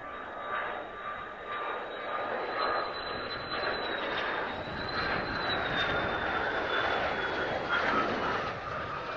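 Mitsubishi F-2 fighter's single F110 turbofan on a low approach: a high turbine whine over a rush of jet noise, growing louder as the jet nears. The whine lifts slightly about halfway through, then slowly falls in pitch.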